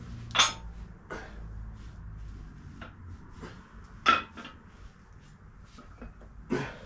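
Several sharp knocks and clanks of workout equipment being handled and set down, the loudest about half a second in and about four seconds in, over a low steady hum.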